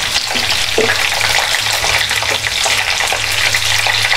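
Whole amla (Indian gooseberries) sizzling as they fry in hot oil in a metal kadai, stirred with a wooden spatula, which gives a few faint knocks. A low steady hum runs underneath.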